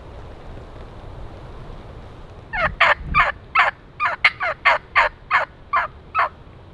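A run of about a dozen loud turkey yelps, roughly three a second, each note dropping in pitch, starting a little over two seconds in, over a steady rumble of wind on the microphone.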